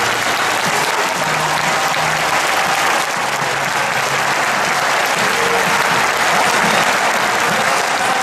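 A large stadium crowd applauding and cheering steadily, with a faint tune carrying under the clapping.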